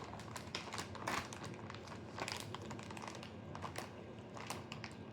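Plastic bag of shredded mozzarella crinkling and crackling in irregular bursts as it is handled, not yet opened.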